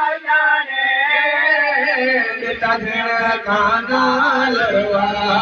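Male voice chanting a Punjabi noha, a mourning lament, into a microphone in long, bending, held melodic lines. From about halfway there are low thumps beneath it, the mourners beating their chests (matam).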